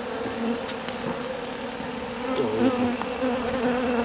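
Many honeybees buzzing around beehives during the honey harvest: a steady hum that wavers slightly in pitch.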